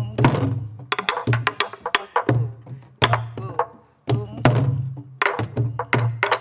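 Several sori-buk, the barrel drums that accompany pansori, played together in a rhythm drill: sharp stick strikes on the wooden shell and rim, and deep palm strokes on the drumhead, in a repeating pattern. The pattern breaks off briefly about four seconds in, then starts again.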